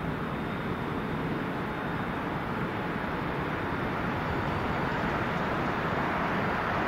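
City street traffic with a tram and cars approaching, a steady noise that slowly grows louder.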